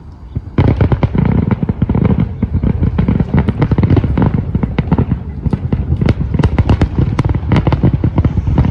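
Fireworks going off in a dense barrage of rapid bangs and crackles, starting suddenly about half a second in and carrying on without a break.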